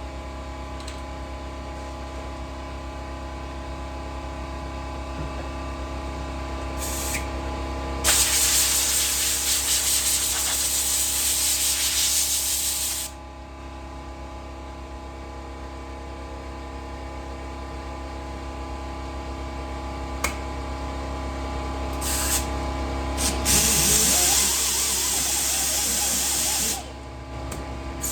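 Compressed air hissing in bursts from a pneumatic suction cup dent puller: one short burst, a long one of about five seconds, then another brief burst and a long one near the end, over a steady hum.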